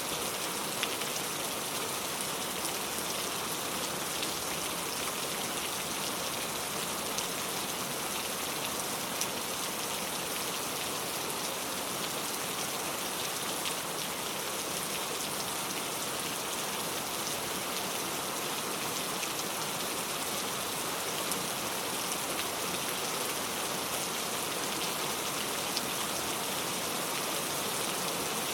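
Steady rainfall, an even hiss of rain with many small drops pattering, and now and then a slightly louder drop.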